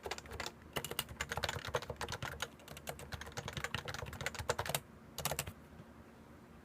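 Typing on a Topre Realforce 87U keyboard with 45 g electrostatic capacitive switches, unlubricated stock sliders and PBT keycaps: rapid, continuous keystrokes that break off nearly five seconds in, with one short last flurry just after before the typing stops.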